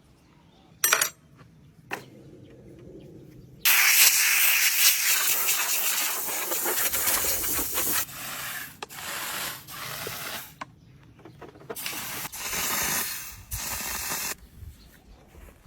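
Gas hissing out of a spray nozzle in several long bursts. The first and loudest starts about four seconds in and lasts about four seconds, followed by shorter, quieter bursts.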